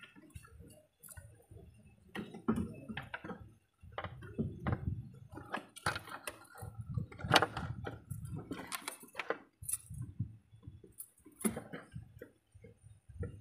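Irregular light knocks and clinks as a valve cover is handled and set down onto the cylinder head of a Toyota 2KD diesel engine, with low rumbling handling noise between them.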